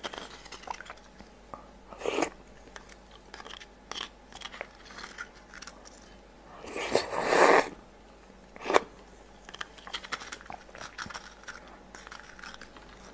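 Close-up eating of raw sea urchin roe: small clicks and scrapes of a spoon in the spiny shell, and mouth and chewing sounds, with a louder mouth sound lasting about a second around seven seconds in.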